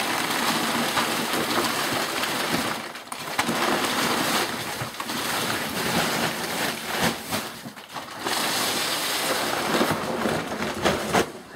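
Large woven sacks being heaved and shoved across a table top: a loud, continuous rustling and scraping with two brief lulls, cutting off shortly before the end.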